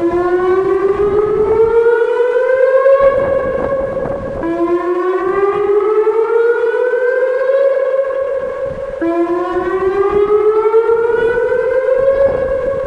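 Whelen WPS-2906 electronic outdoor warning siren sounding its whoop signal: a loud tone that rises and then levels off, starting over about every four and a half seconds, three rises in all. This is the siren's activation for a severe thunderstorm warning.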